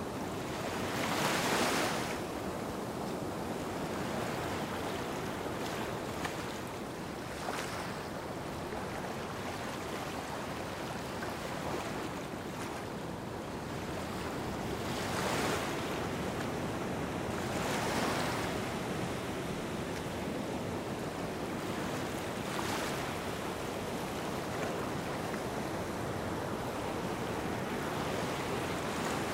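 Small sea waves washing onto a sandy shore: a steady wash of surf that swells louder every few seconds as each wave comes in.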